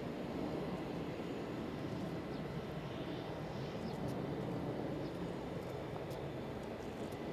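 Jet airliner engines running in the distance: a steady low noise that holds level throughout.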